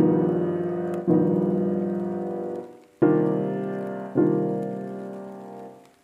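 Background piano music: sustained chords struck about every one to two seconds, each ringing on and fading before the next.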